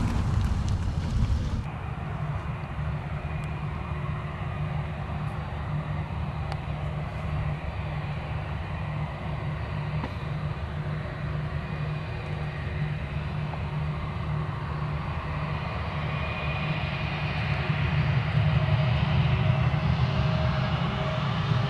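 Jet engines of an Airbus A320 running at low thrust with a steady rumble and a faint whine as it taxis onto the runway, growing louder near the end as thrust comes up. The first second and a half is a louder rumble that cuts off abruptly.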